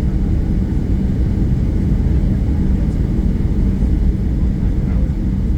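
Steady low rumble of a Boeing 737-800 heard inside the passenger cabin while taxiing, its CFM56-7B engines running at taxi power.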